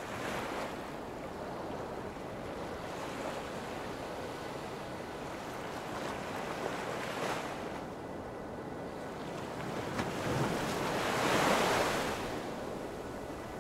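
Ocean surf: waves breaking and washing in, the rushing noise swelling a few times and loudest near the end.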